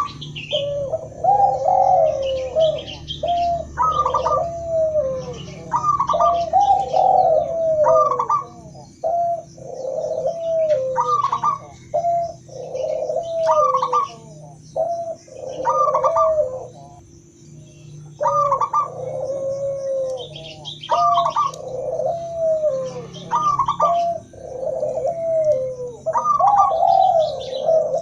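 Doves cooing: a mix of zebra dove, spotted dove and ringneck dove calls, with phrases repeated every second or two and some overlapping. Short higher chirping notes come between the coos.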